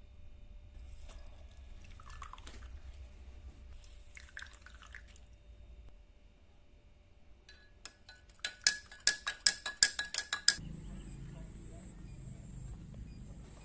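A metal spoon stirring in a glass, clinking against its sides about a dozen times in quick succession, each clink ringing briefly. Fainter handling and scraping sounds come before the clinking.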